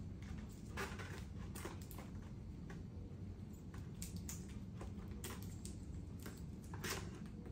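Plastic tubing and connectors of an ECMO circuit handled with gloved hands: scattered light clicks and rustles, over a steady low hum.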